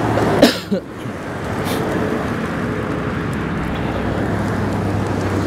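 Wind rushing over the microphone of a handlebar-mounted camera while riding a bicycle, mixed with the steady noise of traffic on the road beside the path. A short, sharp sound comes about half a second in.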